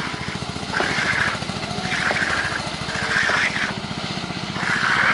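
Small engine running steadily at construction-site machinery pace, with a rush of higher scraping noise that comes back about once a second.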